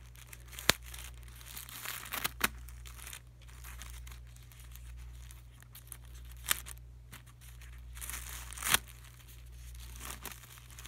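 Individually wrapped CVS Health ultra thin pad being unwrapped by hand: the thin plastic wrapper crinkles and tears open, with four sharp snaps along the way.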